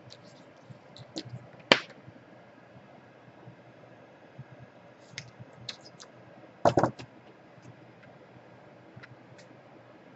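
Light clicks and taps of small tools and parts being handled, with a sharp click about two seconds in and a louder short clatter of clicks about seven seconds in.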